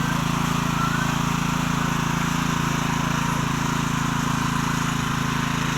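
Small engine of a walk-behind cultivator running steadily at constant speed.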